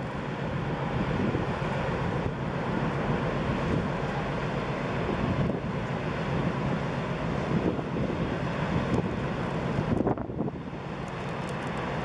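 Wind buffeting the microphone: a steady rushing rumble that thins out briefly about ten seconds in.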